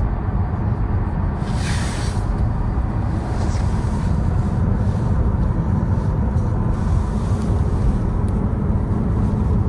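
Steady road and tyre rumble heard inside a moving car's cabin, with a brief rushing hiss about two seconds in.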